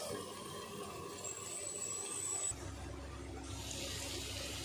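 Chicken frying on a large dosa griddle (tawa), with a steady low sizzle, first under a steel lid. About halfway through the sound changes and a low hum joins in.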